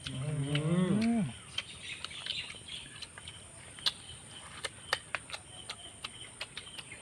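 A man's drawn-out, rising-and-falling hum of enjoyment lasting about a second, then a run of sharp, irregular clicks and smacks from eating.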